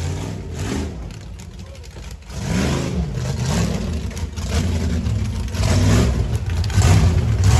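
Off-road race buggy engine revving hard, picking up sharply about two seconds in, then rising and falling in pitch as the throttle is worked.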